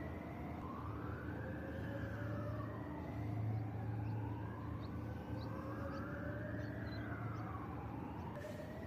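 Emergency vehicle sirens wailing, their pitch gliding slowly up and down in overlapping sweeps, over a steady low hum.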